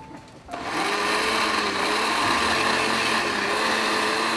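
Electric countertop blender starting about half a second in and then running steadily, pureeing chunks of sponge gourd (luffa) with raw egg into a smooth liquid.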